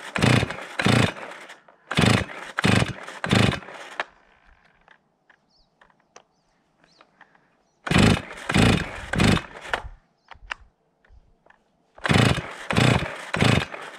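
Stihl MS 270 two-stroke chainsaw being pull-started: four rounds of three or four rapid starter-cord pulls with pauses between, the engine not keeping running. This is a worn saw that the owner says runs and bogs and needs a rebuild.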